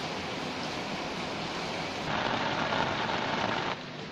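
Heavy rain falling in a steady hiss. About halfway through it turns louder and denser for a second and a half, then drops back abruptly.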